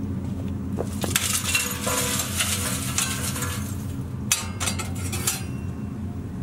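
Paper crinkling and rustling as it is stuffed into the steel firebox of a Mill Scale 94-gallon offset smoker. A few sharp clinks and knocks follow about four seconds in. A steady low hum runs underneath.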